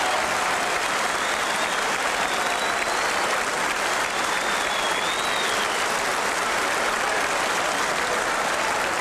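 Arena crowd applauding steadily after a boxing bout, with a couple of faint whistled notes rising and falling over the clapping in the first half.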